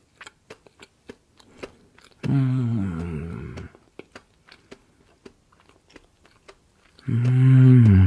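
Close-up chewing of plain deep-fried chestnuts: soft crunches and small wet clicks of the mouth. Two long "mmm" hums of enjoyment come about two seconds in and again near the end.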